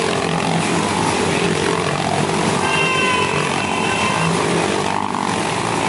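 Motorcycle engines running and revving inside a steel-mesh globe of death, their pitch shifting up and down as the riders circle the cage.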